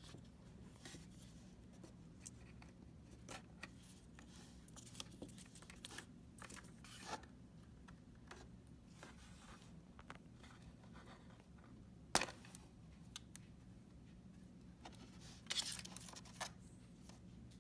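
Quiet hand work on the opened iMac's double-sided adhesive tape: scattered scraping, tearing and small clicks, with one sharp click about twelve seconds in and a brief rustling tear near the end, over a low steady hum.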